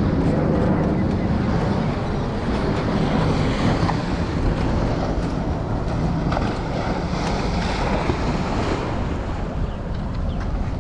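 Wind buffeting the microphone over surf washing against jetty rocks, a steady rushing noise with a few faint knocks.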